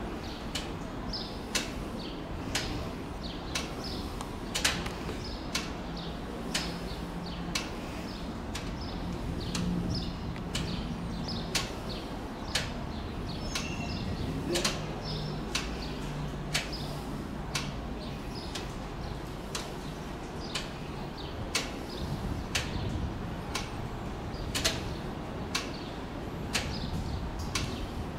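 Eight-cylinder English Electric diesel engine of a CP 1400-class locomotive running with a steady low hum as the locomotive approaches slowly. Sharp clicks sound about once a second over it.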